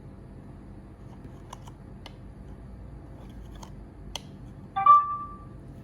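A few light clicks, then about five seconds in a short electronic beep from an Android POS terminal: the card reader confirming that data has been written to the NFC card.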